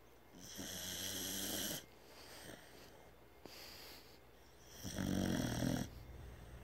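Loud snoring: two long snores about four and a half seconds apart, with a softer breath between them.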